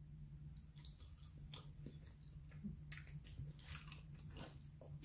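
Faint chewing of a mouthful of spaghetti, with small scattered mouth clicks, over a low steady hum.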